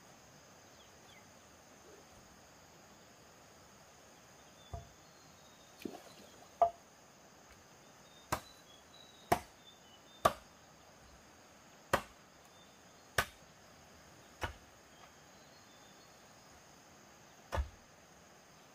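About ten sharp knocks of a tool striking bamboo, roughly one a second and unevenly spaced, starting about five seconds in. A faint, steady insect drone runs underneath.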